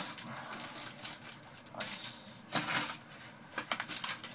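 Crumpled packing paper rustling and crinkling as it is pulled out of a cardboard box and a wrapped book is lifted out, with a few short louder crinkles in the second half.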